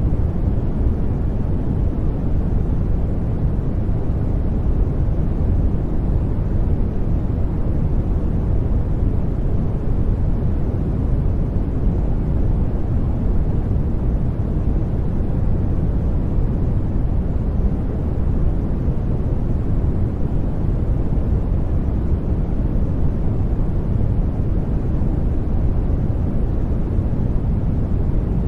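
Steady, unchanging sleep noise track, deep and soft, its weight in the low end with little hiss on top.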